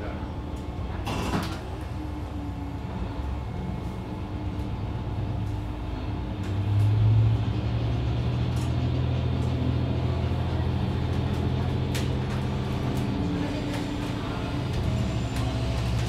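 Diesel railcar engine running with a steady low drone, heard from just behind the driver's cab. The drone swells louder about six seconds in as the train gets moving. There is a sharp click about a second in and another about twelve seconds in.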